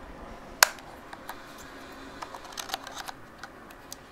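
Plastic SD card door on a Canon DSLR's grip clicking open, one sharp click about half a second in, followed by a run of lighter clicks and taps as fingers handle the door and card slot.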